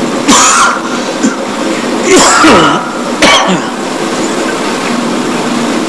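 Three short coughs and throat-clearings, about half a second in, around two seconds in and about three seconds in, over a steady background hiss.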